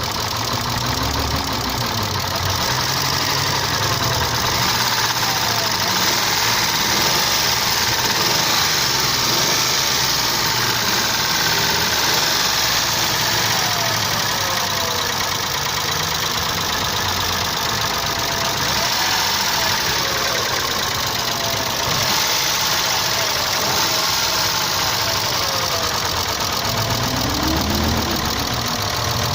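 Isuzu 6VD1 3.2-litre SOHC V6 engine running steadily with a tapping knock from its hydraulic lifters, which the owner blames on counterfeit oil.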